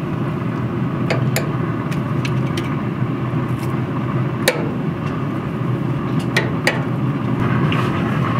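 Pellet grill's fan running with a steady low hum, while metal tongs click sharply against the grill grates as chicken fillets are laid down, about seven clicks.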